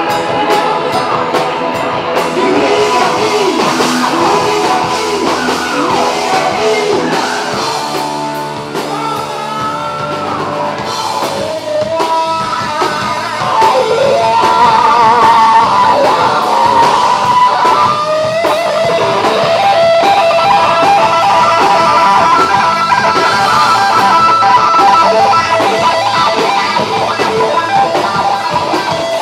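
Live rock band playing an instrumental stretch: electric guitar lead with bent and wavering notes over bass guitar and drums.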